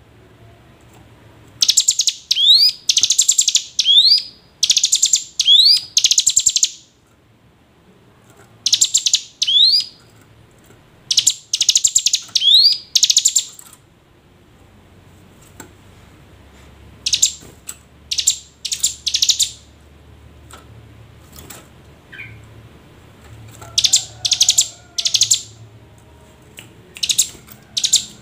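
Ciblek gunung calling in loud, fast rattling bursts of high notes, some phrases ending in quick rising whistles. The bursts come in groups of two to four with short pauses between them. This is a lure call, used to prompt a reluctant ciblek gunung to sing.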